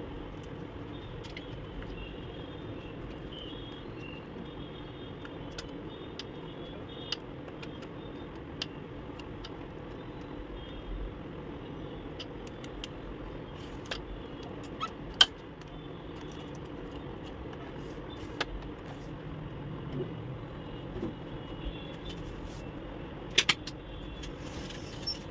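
Steady low background rumble and hiss with scattered small clicks and taps, the sharpest about fifteen seconds in and a quick pair near the end: the plastic ink-supply tubes and parts of an Epson L130 printer being handled and pressed into its cartridge carriage.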